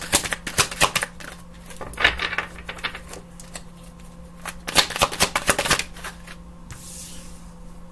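Tarot deck being shuffled by hand: runs of quick clicks and snaps, in several clusters, with a short soft hiss near the end.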